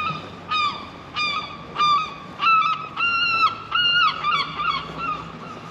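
A gull calling in a long series of loud, pitched calls: short ones at first, a few longer drawn-out ones in the middle, then quicker, fainter ones near the end.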